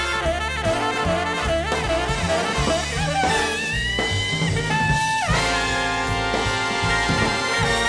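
Background music: an upbeat jazz swing track with brass and saxophone over a steady bass beat, with a long held high horn note in the middle that drops away.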